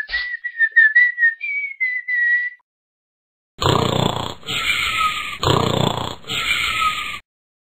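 A whistled tune, breaking off after about two and a half seconds. After a second's pause come two comic cartoon snores, each a rough rasping in-breath followed by an out-breath with a falling whistle.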